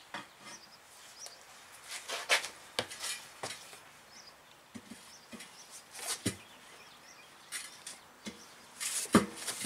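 Long steel tire irons levering a truck tire's bead onto a steel wheel by hand: irregular scrapes and knocks of the irons against the rim and rubber, with a cluster of them near the end.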